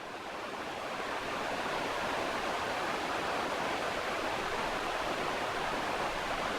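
Creek water rushing steadily over rocks, fading up over about the first second.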